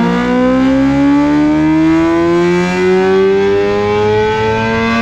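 BMW motorcycle engine under test, held at load with its pitch climbing slowly and steadily as the revs rise, then cut off abruptly near the end.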